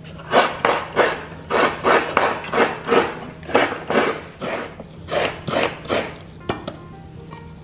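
Coconut grater scraping the flesh out of a split coconut, a quick run of about twenty rasping strokes, roughly three a second, that stops about a second before the end.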